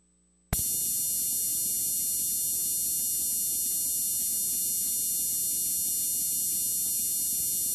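Television static (snow): a steady hiss with a high-pitched whine over it, cutting in suddenly about half a second in after near silence.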